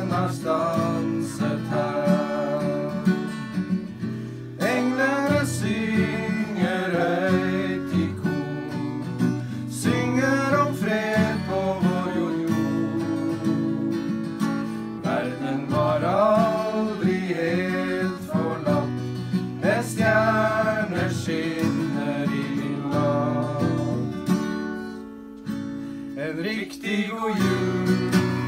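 A Christmas song sung in phrases over strummed acoustic guitar.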